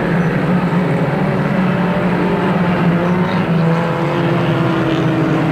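Engines of a pack of Ministox (Mini-bodied) stock cars running together at racing speed: a steady drone whose pitch shifts a little as the cars go around.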